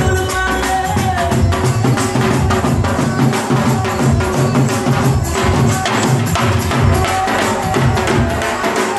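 Dhol drum played in a driving bhangra rhythm, a dense run of sharp strikes, with loud dance music under it.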